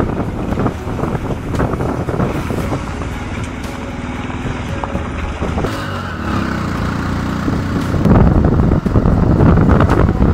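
Motorcycles riding along with engines running. It grows louder about eight seconds in.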